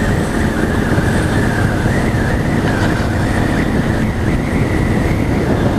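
Steady running noise of a road vehicle on the move, heard from on board: engine and road rumble with a faint wavering whine above it.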